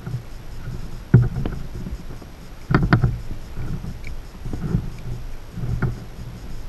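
Handling noise of a plastic outdoor security camera turned over in the hands: several light knocks and clicks, the loudest about a second in and a pair near three seconds in, over a low rumble.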